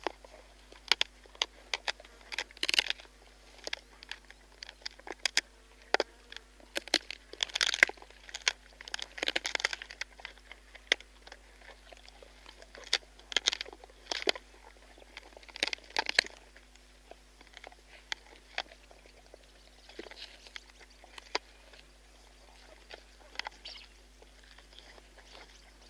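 Spotted hyaena crunching and gnawing buffalo bones close up: irregular sharp cracks and crunches, in dense clusters for the first half or so, then sparser and quieter.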